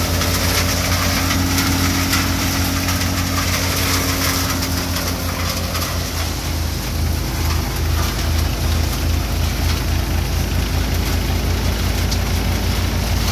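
Tractor-driven Chakradhar thresher running under load as dried bean plants are fed into its drum, with the tractor's diesel engine running steadily. A strong low hum takes on an even pulsing beat from about halfway through.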